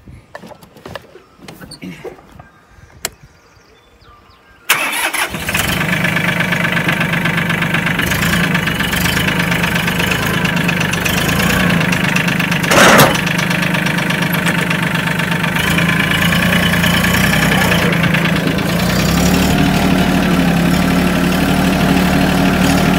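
Compact tractor engine starting about five seconds in after a few faint clicks, then running steadily as the tractor drives off. A brief loud burst of noise comes near the middle, and the engine note shifts about two-thirds of the way through.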